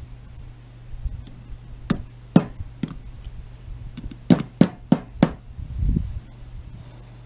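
Light sharp taps driving the float hinge pin through a lawn mower carburetor to centre it. There are three taps about two seconds in, then four quicker taps a little past the middle.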